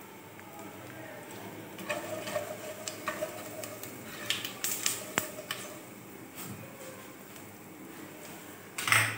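Black spatula stirring whole spices (cumin seeds, bay leaf, cloves, cinnamon) in hot oil in a steel pot, with scattered scrapes and light clicks against the pot from about two to five and a half seconds in. A louder knock comes just before the end.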